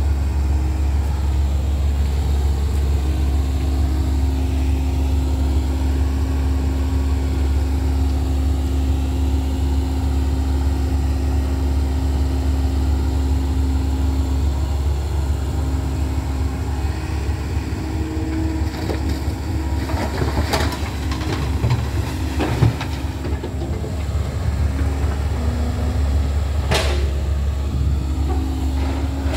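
Komatsu hydraulic excavator's diesel engine running steadily while loading stone into a dump truck, with a cluster of clattering knocks about two-thirds of the way through, as rock drops into the truck's steel bed, and one sharp knock near the end.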